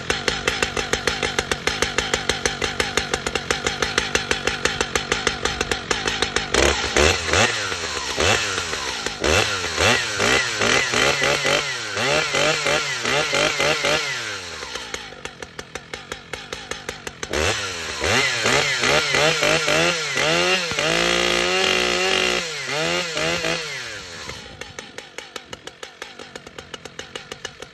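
Stihl MS 881 two-stroke chainsaw idling, then revved up and down again and again, once held at high revs for a couple of seconds, before dropping back to idle near the end.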